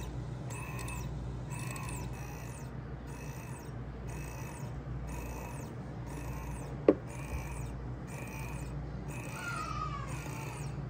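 Okka Rich Pro Turkish coffee machine running with a low steady hum, while a soft tone repeats about once a second. A single sharp click sounds about seven seconds in.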